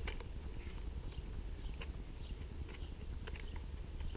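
Light, irregular clicks and taps as an angle grinder's disc guard is rotated round its collar by hand and unclipped, over a low steady rumble.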